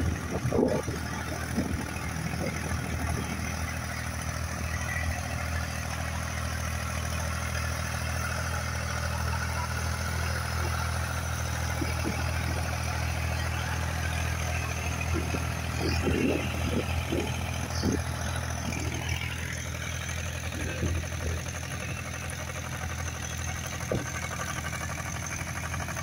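Engines of small homemade mini tractors running steadily as they pull ploughs through stubble.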